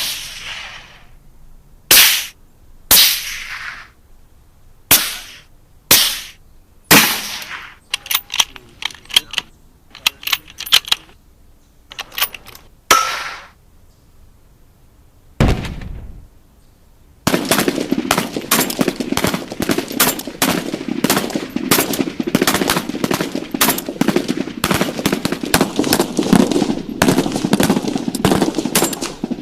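Gunfire sound effects: single shots a second or two apart, then short rapid bursts, one deep boom, and in the last twelve seconds or so continuous automatic fire.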